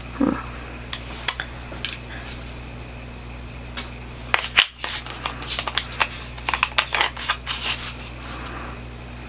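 Cardboard product box and plastic lotion tube being handled and opened: scattered clicks and paper rustles, sparse at first and busiest around the middle and again a few seconds later.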